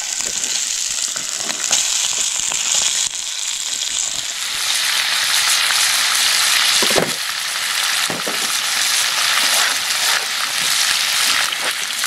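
Sausages frying in a hot skillet over a campfire: a loud, steady sizzle that swells about four seconds in, with a few sharp pops.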